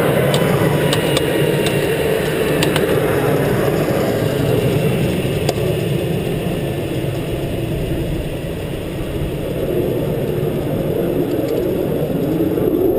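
Aero L-29 Delfín's turbojet engine running steadily at low power on the ground, heard from inside the cockpit, with a few sharp clicks in the first three seconds.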